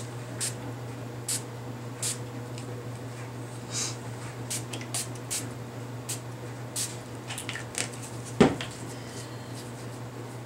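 A Dylusions ink spray bottle's fine-mist pump spritzing in repeated short, hissy puffs at irregular intervals. A single sharp knock about eight seconds in, over a steady low hum.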